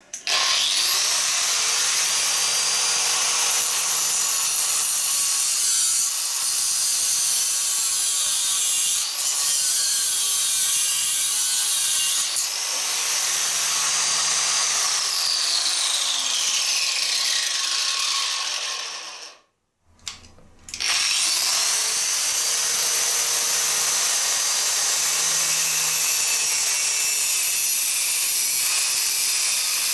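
Angle grinder cutting metal: a loud, steady, high-pitched grinding hiss. A little before two-thirds of the way through, the disc winds down and falls nearly silent for about a second, then the grinder spins up again and cuts on.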